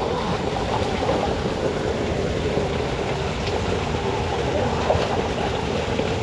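Steady rush of water flowing through a narrow irrigation channel, an even hiss with no changes.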